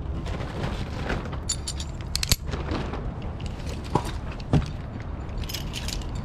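Metal rope-access hardware jangling and clicking, with three sharp knocks about two, four and four and a half seconds in, over a steady low rumble.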